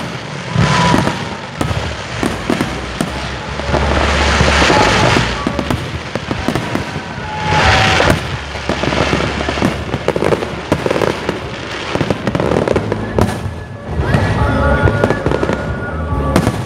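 Aerial fireworks display going off: a dense, irregular run of bangs and crackling, with the biggest bursts about four and eight seconds in. Music plays underneath.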